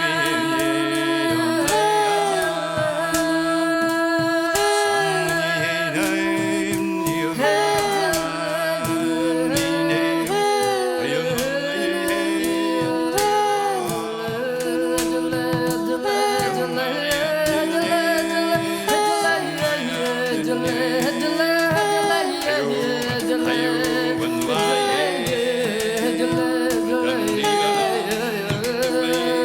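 Live improvised ensemble music with a singing voice. The voice slides up and down between notes, over steady held tones.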